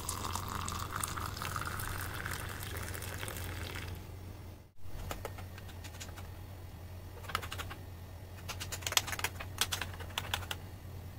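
Hot milk poured into a glass mug of whipped coffee, the pour's pitch rising as the mug fills. After a cut, a metal spoon stirs in the glass mugs, clinking against the glass in clusters of quick taps.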